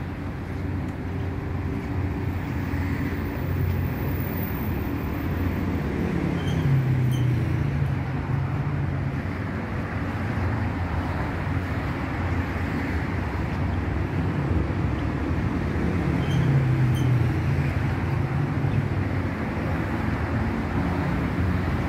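City street traffic: a steady hum of cars on the road, with a passing vehicle's engine swelling about six seconds in and again about sixteen seconds in.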